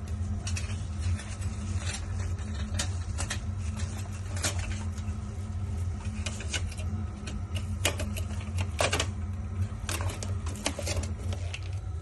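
A steady low hum with irregular light clicks and rattles over it, several louder ones coming in a cluster in the last third.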